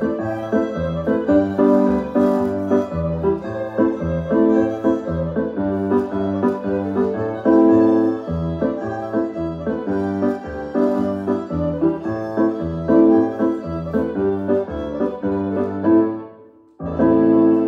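Recorded Scottish country dance music led by piano or keyboard, with a steady dance beat. The music breaks off briefly near the end, then a held chord sounds, the closing chord for the dancers' bow.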